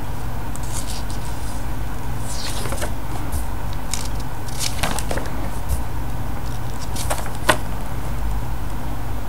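Pages of a printed comic book being turned and handled: a series of short paper rustles and swishes over a steady low hum.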